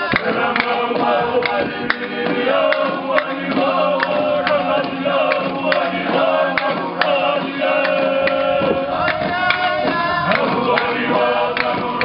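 A group of men singing a ceremonial chant together in held pitches. Scattered sharp knocks are heard through it.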